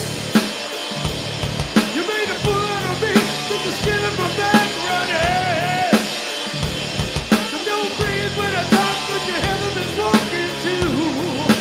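Live hard-rock music from a bass-and-drums duo: electric bass guitar and drum kit, with a man singing over them. A hard drum hit lands about every second and a half.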